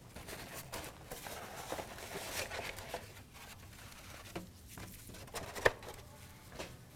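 Egg carton being handled and opened: faint rustling and crinkling with scattered light clicks, the sharpest about five and a half seconds in.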